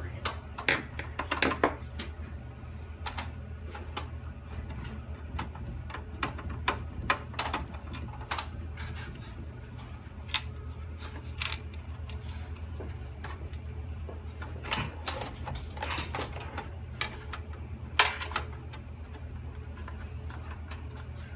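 Irregular clicks, taps and scrapes of a screwdriver working screws and metal parts while a motherboard is taken out of a computer case, with one louder knock near the end. A steady low hum sits underneath.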